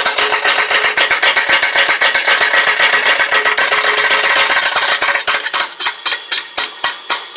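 Van Norman 777S boring bar cutting a cast-iron cylinder of a 454 big-block Chevy block: a steady high ringing with rapid, even ticking. About five seconds in the dense cutting sound drops away, leaving a regular tick about three times a second.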